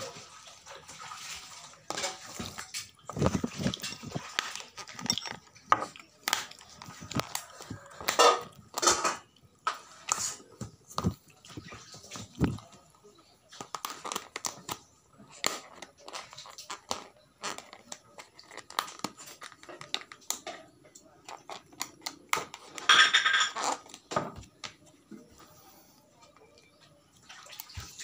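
Eating at a table: irregular small clicks and clinks of a utensil against a bowl and plastic food containers, with a louder clatter about 23 seconds in.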